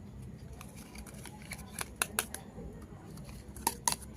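Small sharp clicks and taps from miniature toy kitchen pieces being handled: a few around the middle and two crisp ones near the end.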